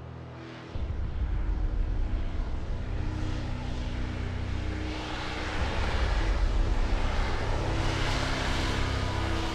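AV-8B Harrier II jump jet hovering, the jet noise of its Pegasus turbofan coming in suddenly with a deep rumble under a second in and swelling louder about five seconds in, over a droning music score.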